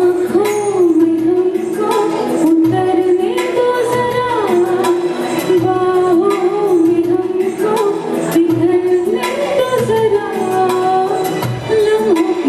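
Hindi film song sung live by a singer over a backing track with percussion, played through a PA system.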